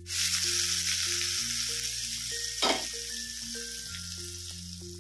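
Hot tadka oil with fried cashews and red chilli powder poured onto a creamy curry, sizzling loudly the instant it hits and then slowly dying down. One sharper crackle comes about two and a half seconds in.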